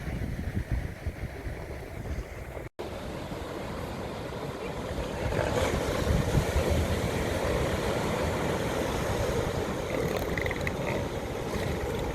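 Wind on the microphone and ocean surf, broken by a sudden silent cut about three seconds in; after the cut a steady rumbling noise goes on.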